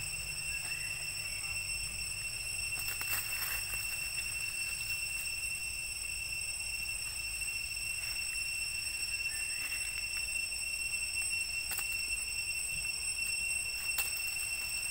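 Steady high-pitched whine of insects, with faint rising squeaks from young long-tailed macaques near the start and again about two-thirds of the way through. A few short clicks and rustles stand out, from the monkeys moving on branches and dry leaves.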